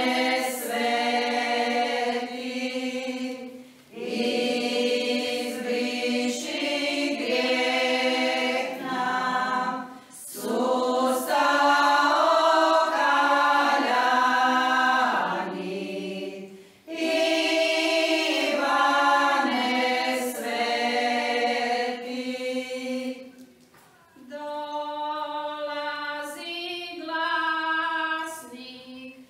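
Women's folk choir singing a Croatian church folk hymn unaccompanied, in long phrases with short breaks between them about four times.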